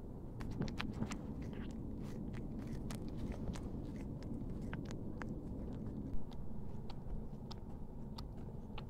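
Cat grooming itself, licking and nibbling at its belly and leg: an irregular run of small sharp clicks, with one louder knock about six seconds in.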